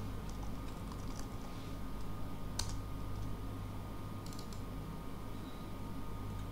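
Scattered computer keyboard keystrokes and clicks, with one sharper click about two and a half seconds in and a quick cluster a little after four seconds, over a steady low hum.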